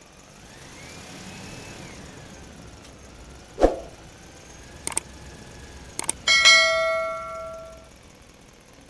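Subscribe-button animation sound effects: a thump a little over three seconds in, a few sharp clicks around five and six seconds in, then a bright bell ding that rings out and fades over about a second and a half.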